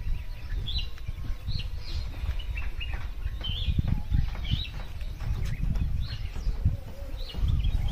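Small birds chirping in short calls about every second, over the uneven rumble of wind buffeting the microphone.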